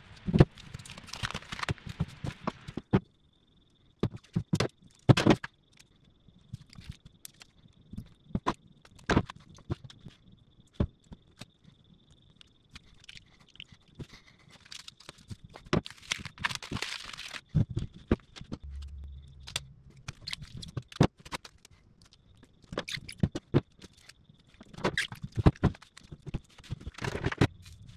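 A battery pack of cylindrical lithium cells in plastic cell holders handled on a workbench: irregular clicks, knocks and scrapes as the pack is set down, turned and taped, with a longer rasping scrape a little past the middle. A faint steady high tone runs underneath.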